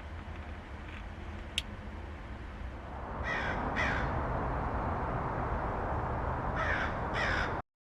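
A crow cawing, two pairs of short, falling caws about three seconds apart, over a steady rushing background noise that swells about three seconds in. The sound cuts off abruptly near the end.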